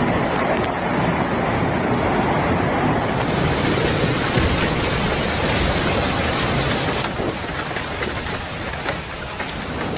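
Heavy storm noise of wind and rain buffeting the microphone, a loud, dense rush. It changes abruptly about three seconds in and again about seven seconds in.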